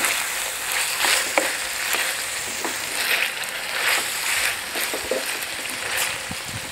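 Chunks of meat sizzling as they fry in oil in a stainless steel pan, with a slotted metal spoon scraping and clinking against the pan now and then as they are stirred.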